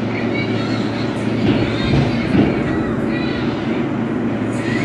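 Inside an R143 New York City subway car as the train starts pulling out of a station: a steady low hum from the car's motors and equipment, with the rumble of wheels on rails building as it gets moving.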